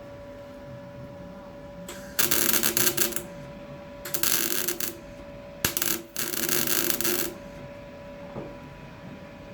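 MIG welder laying short runs on a car floor panel: four bursts of sputtering, crackling arc, each about a second long, with a steady hum underneath.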